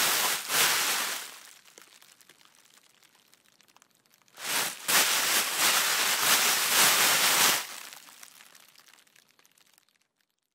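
Plastic trash bag being handled, rustling and crinkling in two bouts with a short near-quiet pause between them, the second trailing off near the end.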